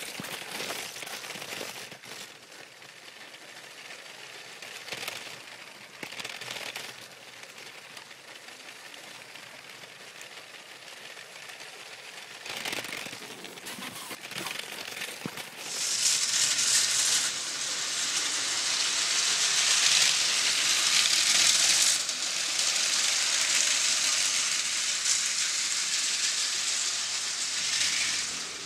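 A Lego train running along plastic track, picked up by a small camera riding on it: a steady rattling hiss with crackles, which grows much louder a little past halfway.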